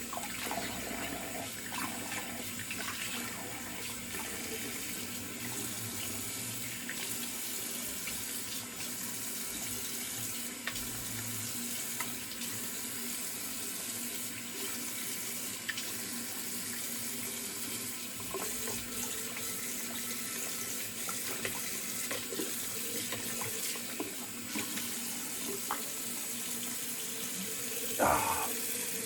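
Cold water running steadily from a bathroom sink tap, for rinsing the face after a shave. It is shut off right at the end.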